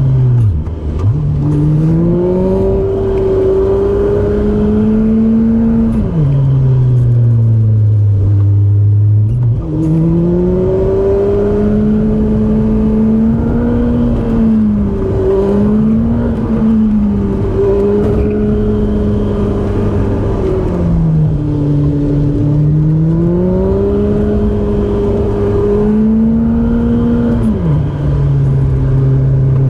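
Car engine running under load, its revs climbing and easing off again and again, with sharp drops in pitch about six seconds in and again near the end, as the car is driven hard through a run of bends.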